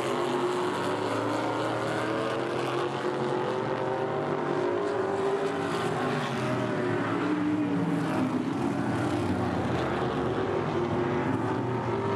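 Several modified race car engines running hard around an oval track, their overlapping engine notes rising and falling as the cars pass through the turns and down the straight.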